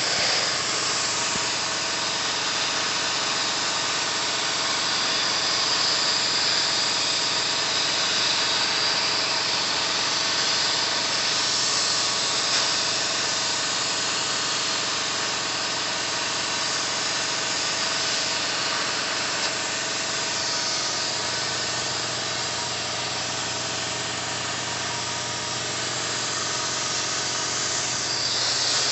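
CNC plasma cutter torch cutting steel plate: the plasma arc gives a loud, steady hiss.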